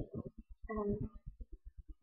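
A woman's short, soft voiced murmur about a second in, between pauses in her talking, with faint low pulses repeating about nine times a second underneath.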